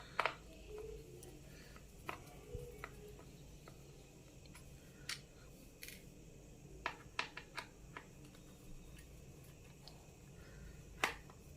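Scattered light clicks and taps of plastic parts being handled as the fan and sensor wire connectors are unplugged inside an opened induction stove, with a quick run of clicks about seven seconds in and a sharper click near the end.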